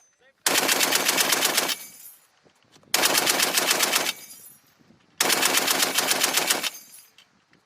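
M2A1 .50-calibre heavy machine gun firing three bursts of about one to one and a half seconds each, with short pauses between them and the sound of each burst trailing off after it stops.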